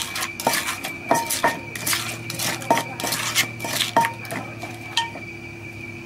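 Wooden pestle pounding and a spoon knocking in a mortar as green papaya salad (som tam) ingredients are pounded and turned. The knocks are irregular, about one or two a second, some with a short ring, and they stop about five seconds in.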